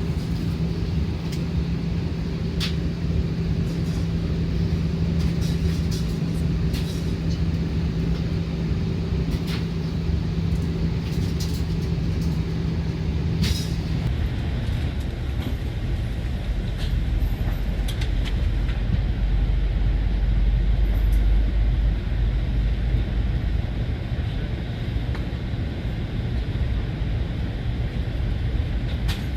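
Steady cabin noise of an Airbus A320 in flight, a constant low drone with a hum over it. About halfway through the hum stops and a deeper rumble takes over, with faint scattered clicks throughout.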